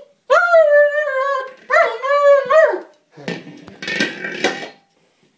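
German Shepherd giving two long, wavering howling whines, the second falling away at the end, upset at not being able to puncture a plastic buoy. Then a second or so of rough, noisy scuffling as he goes at the buoy.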